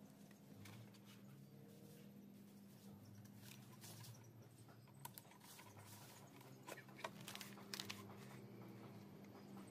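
Faint scraping and small clicks of a cutter knife trimming matte black vinyl film on a plastic scooter body panel, with a cluster of sharper clicks about seven to eight seconds in.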